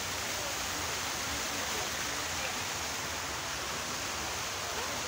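Fountain water splashing and falling in a steady, even rush.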